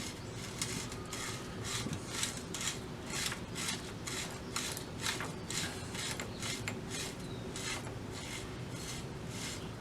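A Schwinn threaded bicycle headset being screwed down and tightened on the fork's greased threads, making a steady run of short rasping strokes, about two to three a second.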